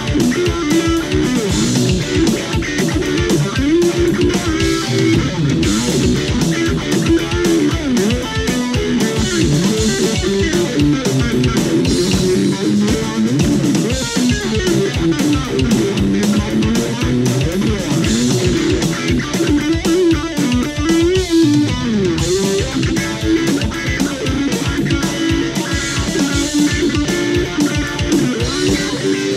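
Flying V-style electric guitar played through an amplifier, picking moving single-note lines over a steady, evenly repeating low beat.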